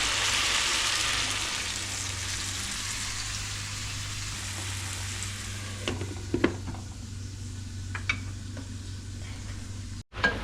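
Chicken sizzling in a hot pan as a splash of water goes in, the sizzle loudest at first, then easing into a steady fry. A few sharp clinks of a utensil against the pan come about six and eight seconds in.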